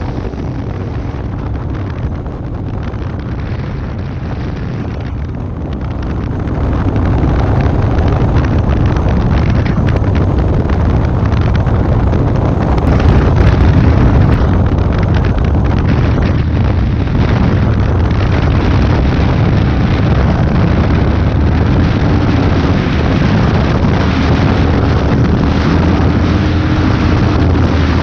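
Motorcycle riding at speed: engine running under heavy wind buffeting on the camera microphone, getting louder about six seconds in.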